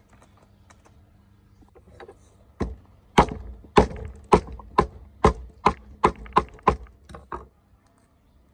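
Cleaver chopping on a thick wooden chopping block: about a dozen sharp chops, roughly two a second, starting a few seconds in and stopping about a second before the end.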